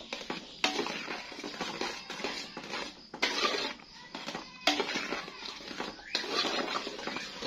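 A spoon stirring and scraping a thick palm-sugar and sago-starch batter in an aluminium pot, in several stretches that start suddenly. The batter is being cooked and stirred until it boils and the white of the starch is gone.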